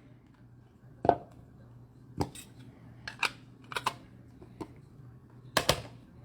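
Trading cards and their holders being handled on a table: a string of about six sharp clicks and taps, irregularly spaced, the loudest near the end.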